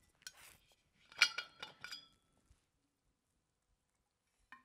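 Cap of a metal water bottle clinking as it is opened: a few light clicks, then a cluster of clinks with a brief metallic ring about a second in. A single small click comes near the end.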